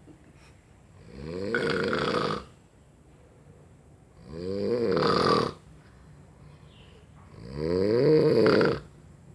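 Snoring: three long, loud snores about three seconds apart, each a deep drone that swells and then breaks off, with quiet breaths in between.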